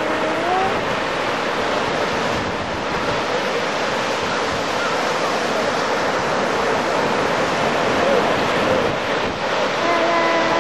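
Sea waves breaking and washing on the shore, with wind on the microphone making a steady loud rushing noise. A child's voice is heard briefly at the start and again near the end.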